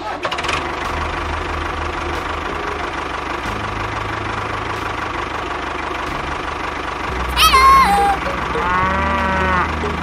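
A motor runs steadily throughout. Near the end a cow moos twice: first a loud call that falls sharply in pitch, then a shorter arching one.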